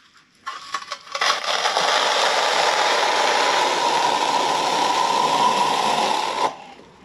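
Steel notched trowel scraping lightweight mortar across the face of an aerated concrete block, combing it into ridges. A few short knocks come first, then one long, even scrape starts about a second in and stops abruptly near the end.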